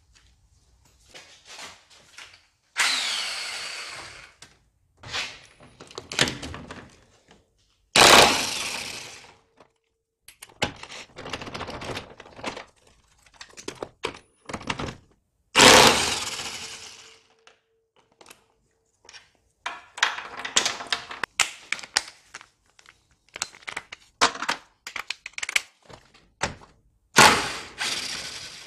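Cordless impact wrench hammering in several short bursts on the front strut top-mount nuts of a Honda CR-X, with clinks and knocks of the socket and tools between bursts.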